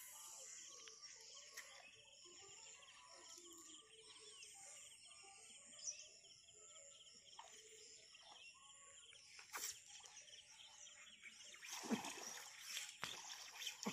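Faint open-marsh ambience with distant bird calls, broken by a few soft clicks. Louder noise picks up near the end.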